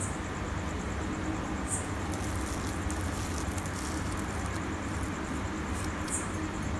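Steady low rumble and hiss from the lit stove under a pot of simmering payasam, with faint high ticks every couple of seconds.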